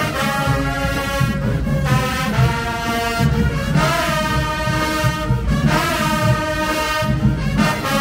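High school marching band playing, led by its brass section: full held brass chords that change about every two seconds, with drums underneath.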